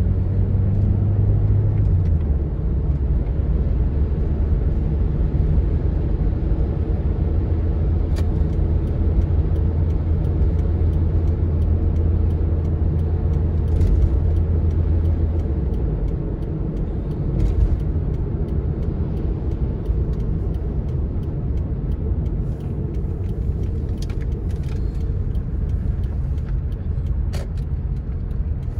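Car driving at motorway speed on a wet road: a steady low engine and drivetrain drone over tyre and road noise. The drone drops slightly in pitch about two seconds in and falls away a little after halfway. A few faint ticks come through.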